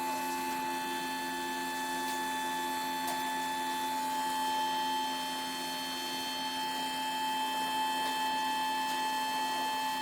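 Woodworking cold press machine running, giving a steady mechanical hum made of several fixed tones that does not change.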